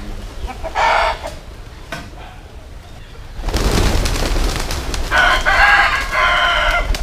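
A rooster crowing: a short call about a second in, then one long crow in two parts starting about five seconds in. A brief low rush of noise comes in the middle.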